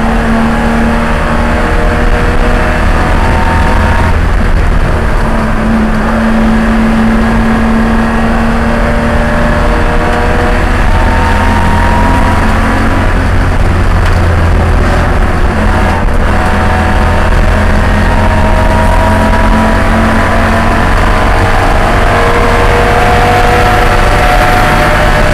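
BMW E30 race car's engine at racing speed, heard from inside the cockpit. The revs climb slowly and drop back several times at gear changes, over a constant heavy rush of road and wind noise.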